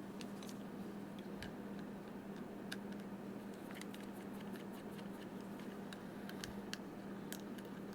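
Faint, irregular light clicks and ticks of small plastic parts of a camera dummy-battery adapter being handled, over a steady low electrical hum.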